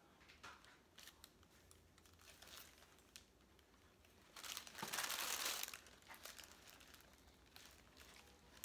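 Paper taco wrappers crinkling and rustling in the hands, loudest in a burst about halfway through.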